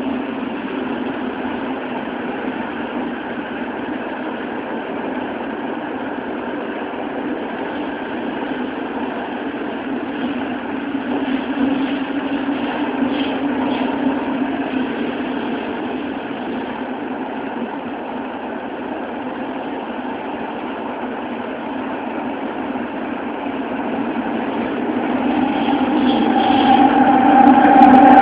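Toei Oedo Line 12-000 series linear-motor subway car running through a tunnel, heard from inside the car: a steady rumble of running noise. It grows louder with a steady hum over the last few seconds.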